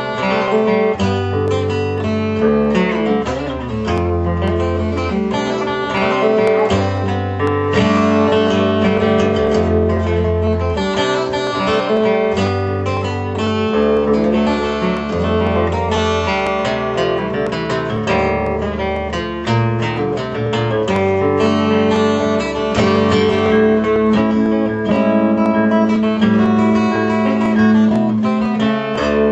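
Solo acoustic guitar played fingerstyle, with held bass notes under plucked chords and a melody line.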